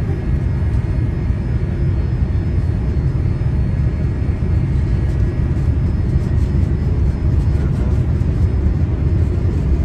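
Steady low rumble of a vehicle running.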